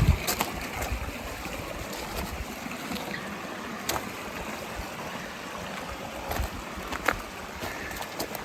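Steady rush of a mountain creek flowing over the top of a waterfall, with a few sharp clicks scattered through it.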